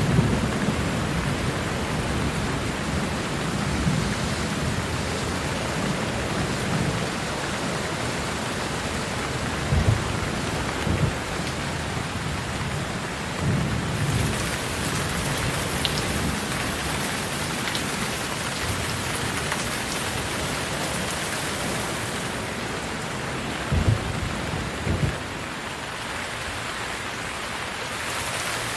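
Steady heavy rain, a constant hiss of falling water, with several short low rumbles of thunder, the clearest about a third of the way in and twice near the end.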